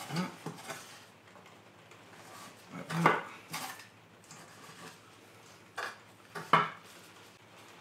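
Kitchen knife cutting down through a log of bread dough, its blade knocking on the wooden table in short sharp strikes, about six in all.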